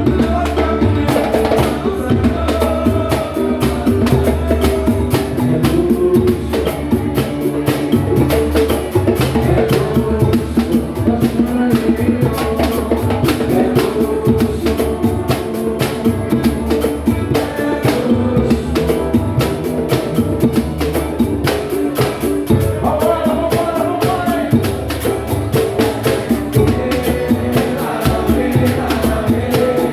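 Samba and pagode band playing, with a steady, dense percussion rhythm driving the music.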